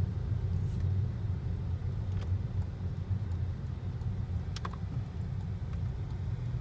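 Steady low rumble of a 2013 Hyundai Elantra being driven, engine and road noise heard from inside the cabin. There is a sharp click about four and a half seconds in.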